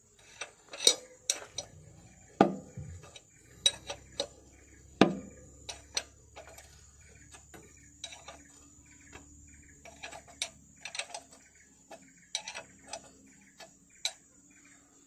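Irregular metallic clicks and clinks of a 22 mm spanner working the bolt of an engine oil filter housing while the filter is fitted, the sharpest strikes about a second, two and a half and five seconds in. A steady faint high whine runs underneath.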